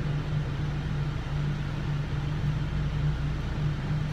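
Steady low hum of a car, heard from inside the cabin.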